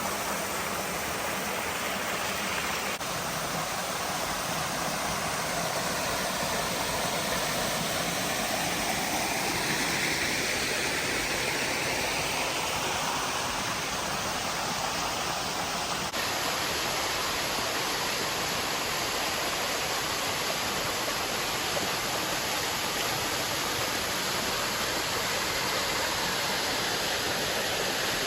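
Mountain creek running over a series of small cascades: steady rushing water, with a small sudden change in its sound about halfway through.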